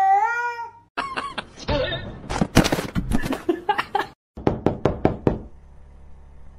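A cat meows once, its pitch dipping and rising, then a rapid jumble of sharp knocks and clicks follows. It ends in about six evenly spaced knocks, roughly five a second.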